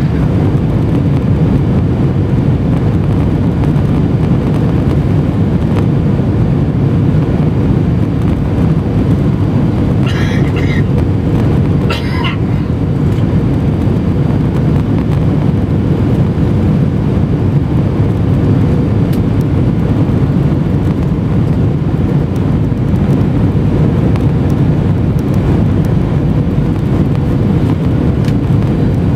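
Steady in-flight cabin noise of an Airbus A319: a loud, even low rumble of engines and rushing air, heard from a window seat beside the wing. Two brief higher-pitched sounds stand out about ten and twelve seconds in.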